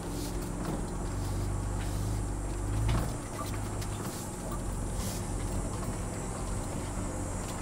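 Ford Bronco Raptor's twin-turbo V6 running at low speed as the truck crawls over a rocky trail, with a brief louder low surge about three seconds in.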